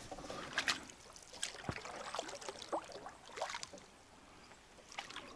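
Water splashing and light knocks at irregular intervals around a small boat being steered in a river current, over a soft steady water hiss.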